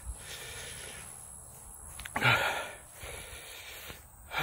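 A man breathing hard through the mouth against the burn of a super-hot chili pepper, with one strong blowing exhale about halfway through and another at the very end.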